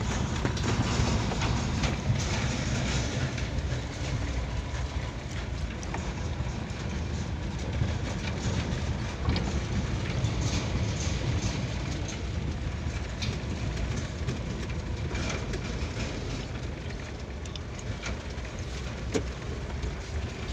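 Vehicle driving over a rough dirt road, heard from inside the cab: a steady low rumble of engine and tyres, with frequent knocks and rattles as it jolts over the bumps.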